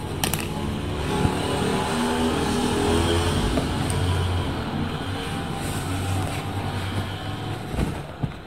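Steady low motor hum, swelling a little around the middle and easing off near the end, with a short click just after it begins.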